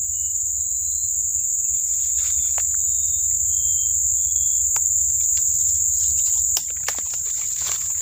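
Insects shrilling steadily at one high pitch in tropical forest, with a few short whistled bird notes in the first half. Footsteps crunch through dry leaf litter, more of them in the second half.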